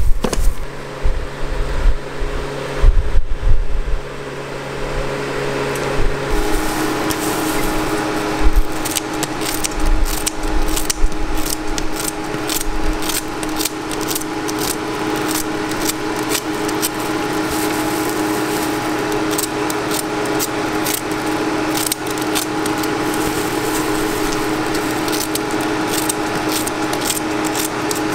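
Kitchen scissors snipping the crisp edge off a fresh waffle: a long run of quick, sharp little cuts over a steady kitchen appliance hum. In the first few seconds, heavy knocks as a rotating waffle iron is closed and turned.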